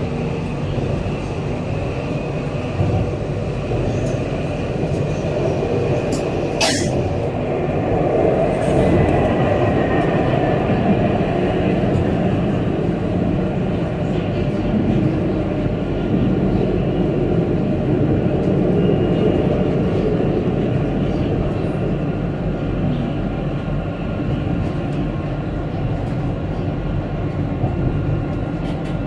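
Alstom Citadis 302 tram running steadily along its track, heard from inside the front of the car: a continuous rumble of wheels and running gear. A single sharp click comes about seven seconds in.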